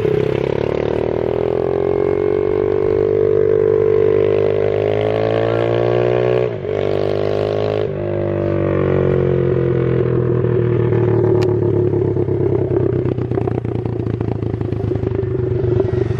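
50cc moped engines running as the pit bikes ride along, the engine note climbing for the first few seconds and then easing back down, with a brief drop about six and a half seconds in.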